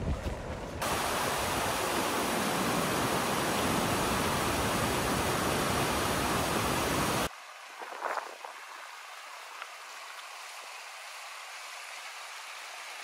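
Loud, even rush of a mountain stream's white-water rapids pouring over rocks. It starts just under a second in and cuts off suddenly about seven seconds in, leaving a much fainter hiss.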